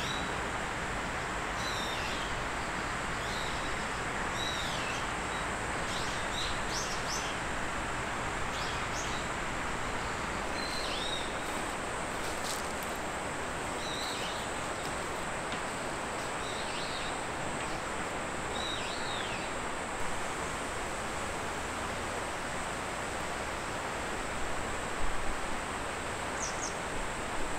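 A bird repeating short, falling chirps every second or two over a steady hiss; the chirps stop about two-thirds of the way through, with a couple more near the end.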